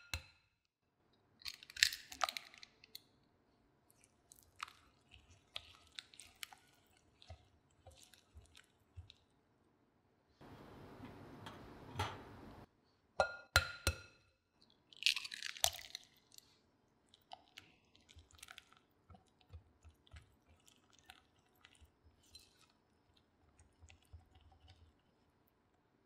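Silicone whisk beating eggs into a thick butter-and-sugar batter in a glass bowl: sticky, wet stirring with scattered small taps against the glass, and a few louder, sharper clicks and crackles near the start and again about halfway through.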